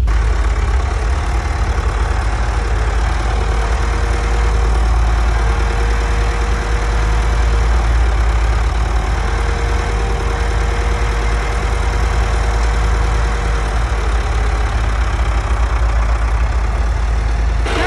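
Vehicle engine running steadily with a deep low rumble, and a thin whine that comes and goes a few times.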